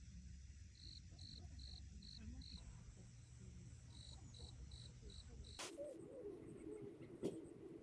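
Faint cricket chirping in short, evenly spaced chirps, about two or three a second. Partway through, the sound changes abruptly to a higher, quicker chirping over a low hum, with a single click near the end.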